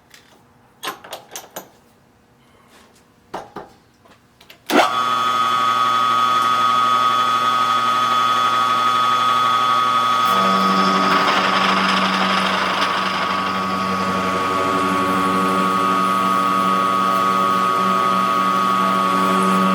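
A few light clicks of handling, then about five seconds in a small machine tool's electric motor switches on with a sharp start and runs steadily with a constant whine and hum. About halfway through its tone shifts and a rougher noise swells for a couple of seconds, as when the cutter takes load, then it runs on steadily.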